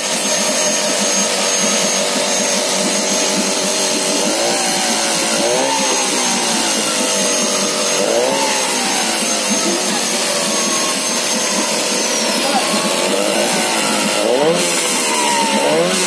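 Tohatsu outboard motor running, its pitch rising and falling in several short revs of the throttle.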